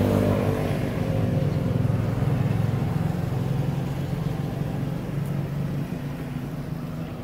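Engine of a road vehicle running, a steady low hum that slowly fades as the vehicle moves away.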